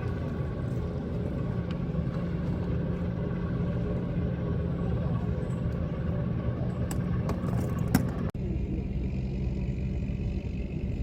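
A steady low engine drone with a constant hum. A few sharp clicks come near the end, then the sound cuts abruptly about eight seconds in, and a similar drone carries on.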